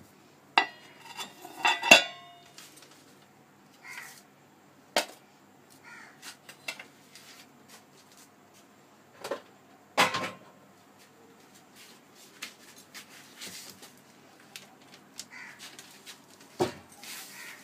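Stainless steel bowls and plates clinking and clattering as they are handled, lifted and set down. A ringing metal clatter comes about two seconds in, then scattered taps and a couple of heavier knocks.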